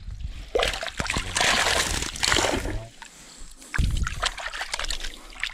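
Water splashing and sloshing for about a second and a half, then a dull bump about four seconds in.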